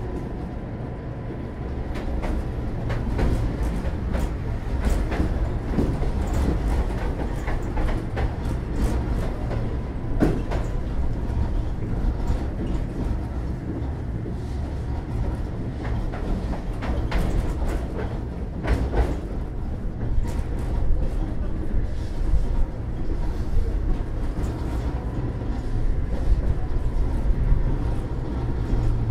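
Inside the passenger saloon of a Tatra T3A tram running along the track: a steady low rumble with frequent clicks and knocks from the wheels on the rails, and a faint steady whine. The running noise grows louder about two seconds in as the tram picks up.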